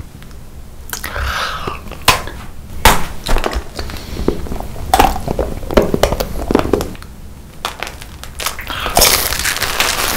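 Close-miked eating sounds: a series of loud, irregular crunches and cracks as crunchy food is bitten and chewed.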